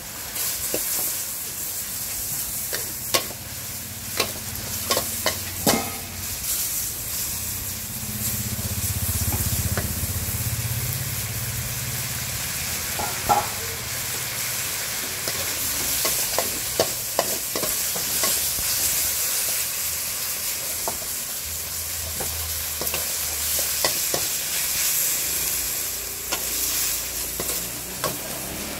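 Pad thai rice noodles sizzling in a hot wok, stirred and tossed with a metal ladle that scrapes the pan. Sharp clinks of the ladle against the wok are scattered throughout.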